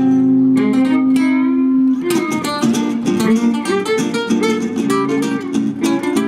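Live acoustic music from two nylon-string guitars and a violin. A long held note rings for about two seconds, then the guitars break into fast rhythmic strumming and picking.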